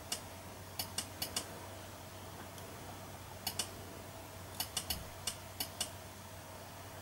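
Computer mouse buttons clicking, about a dozen crisp clicks in short runs of two or three, as the on-screen pan-tilt controls are worked. A faint steady hum runs underneath.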